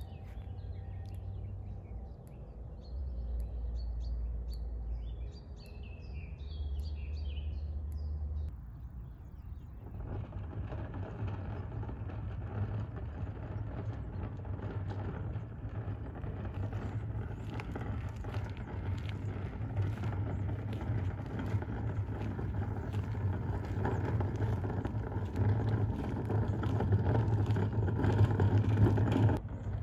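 Birds chirping over a low rumble, then, from about a third of the way in, the steady rattling rumble of two wheeled plastic rubbish bins being pulled along a paved path, growing louder as they come closer.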